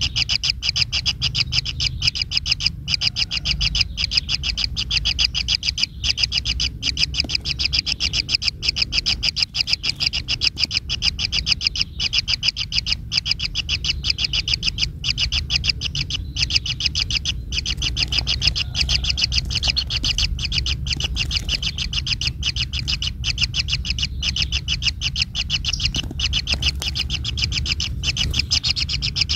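A bird calling in a rapid, unbroken run of short high notes, over a low steady hum.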